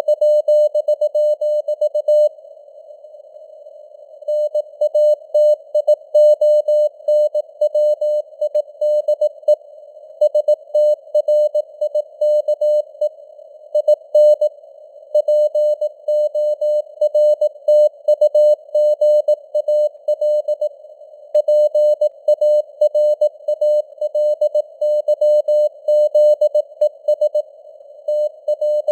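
Computer-generated Morse code (CW) at 18 words per minute: a tone of about 600 Hz keyed on and off in dots and dashes, inside a narrow band of simulated radio hiss. The signal strength rises and falls a little, like QSB fading. There is a gap of about a second and a half about two seconds in.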